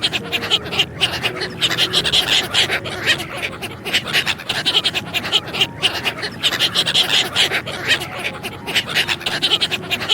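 Quick, breathy animal sounds, several a second, noisy rather than tuneful.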